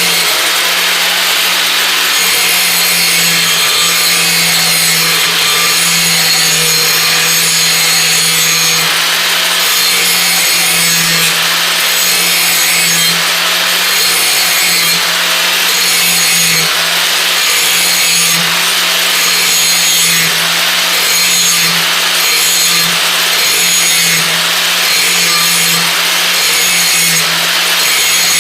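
Electric grinder running steadily against the steel edge of a brush hog blade, taking light polishing passes along the freshly sharpened edge. The grinding rasp swells and eases about once a second with each pass over the motor's constant whine.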